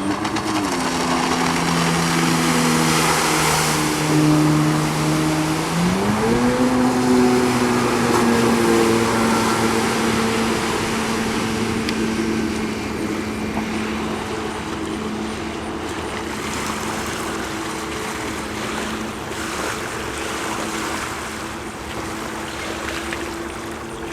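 Jet ski engine running under way: it eases off about half a second in, then throttles back up around six seconds and holds a steady speed, with the rush of water and wind throughout.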